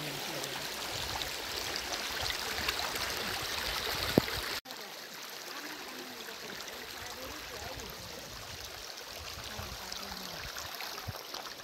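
Shallow rocky stream running over stones, a steady rushing of water. A sharp click sounds about four seconds in, and the sound cuts out for a moment just after, coming back slightly quieter.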